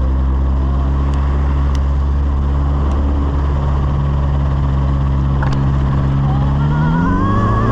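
Light aircraft engine running steadily, its pitch rising near the end as it revs up.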